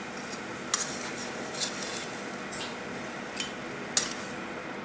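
Metal kitchen tongs clicking and tapping against a frying pan about six times as pieces of fried bread are turned and lifted, over a steady frying sizzle.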